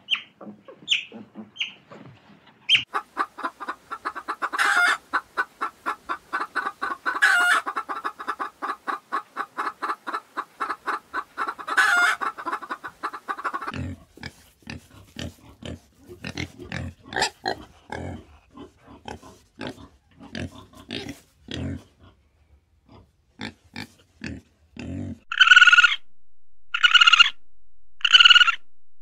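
A run of different animal calls: first a long stretch of rapid, even pulsing calls lasting about ten seconds, then irregular, deeper grunt-like calls, and near the end loud calls repeated about once a second.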